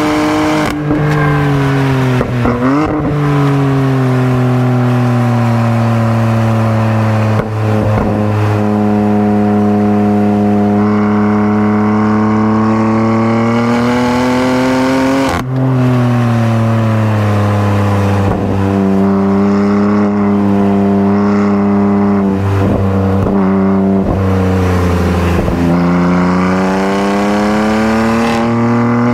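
BMW M3's twin-turbo inline-six engine under hard track driving with a six-speed manual. Revs fall under braking with short blips on the downshifts, climb hard with a quick drop at an upshift about halfway through, fall again through several more blips, and start climbing near the end.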